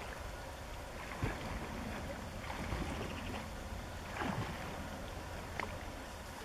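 Splashing of a person swimming across a river, with a few sharper splashes among a steady wash of water.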